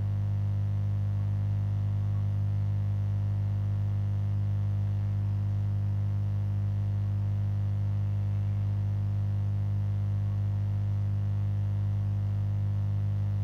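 Steady electrical mains hum, a low buzz that holds the same pitch and level throughout.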